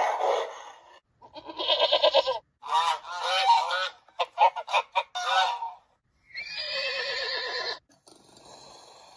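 A string of separate recorded animal calls with short gaps between them. The longest is a run of repeated swan calls, about 3 to 5.5 seconds in. A shorter call comes about a second in, a held call near 7 seconds, and a fainter low sound near the end.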